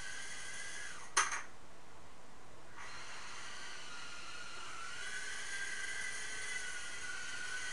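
Tiny Whoop micro quadcopter's small brushed motors and props whining at a high pitch. About a second in there is one sharp knock, and then the whine drops out. It comes back, rising in pitch, about halfway through.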